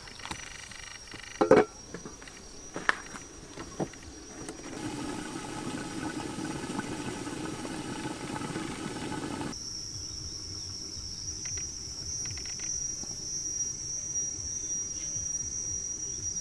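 Insects chirping in a steady high-pitched drone, with a few sharp knocks in the first few seconds; the sound changes abruptly about halfway through, after which the insect drone is louder.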